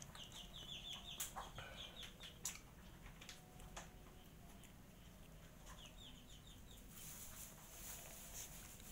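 Cat crunching dry kibble from a steel bowl, with sharp clicks now and then. A rapid run of high chirps from a small animal sounds twice, near the start and again past the middle.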